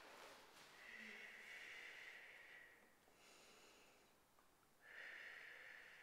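Faint, slow breathing of a woman holding a side-bend exercise: two long breaths of about two seconds each, with a quieter one between.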